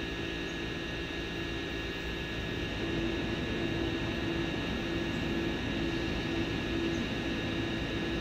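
Quadcopter drone's motors and propellers whining steadily over a hiss, with several fixed pitches; the lower pitch begins to pulse and the sound gets a little louder about three seconds in.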